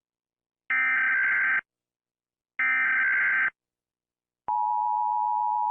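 Emergency Alert System broadcast tones: the screeching data bursts of a SAME digital header, twice about a second apart, followed about 4.5 seconds in by the steady two-tone EAS attention signal.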